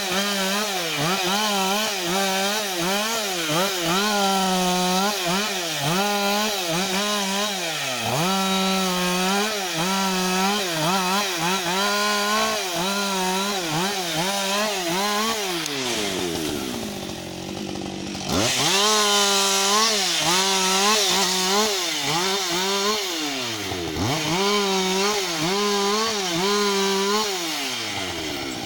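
Husqvarna 562XP two-stroke chainsaw at high revs, cutting branches off a broken fallen tree, its engine pitch dipping under load and recovering again and again. About sixteen seconds in it drops to idle, revs back up a couple of seconds later for more cuts, and falls back to idle near the end.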